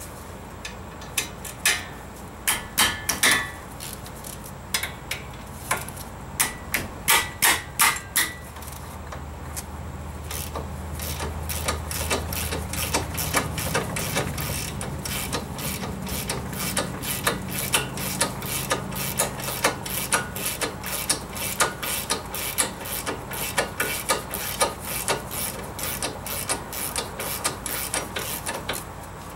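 Hand ratchet wrench clicking steadily, about four clicks a second, as a 17 mm front brake caliper mounting bolt is backed out. In the first several seconds there are louder, scattered metal clicks and knocks as the tool is set on the bolt.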